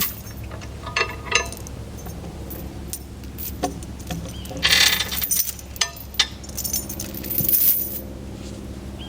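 Metal chain and steel hardware on a log arch clinking and jangling as they are handled: a few sharp clinks, then two longer rattling spells about halfway through and near the end. A steady low hum runs underneath.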